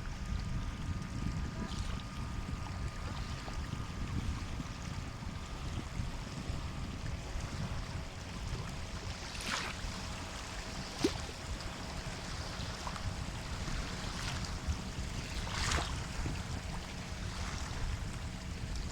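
Sea waves with a steady low rumble of surf and a few short hissing splashes of breaking water in the second half.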